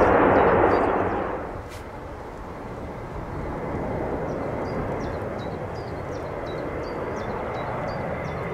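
Airbus A400M's four turboprop engines running loud on the runway, dropping away in the first second or so. Then a fainter, steady turboprop drone from an A400M flying low on approach, with small birds chirping.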